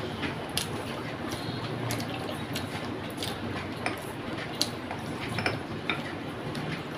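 Close-miked eating: wet chewing and lip smacks with scattered small clicks as fingers break apart a piece of fish on a plate, over steady background noise.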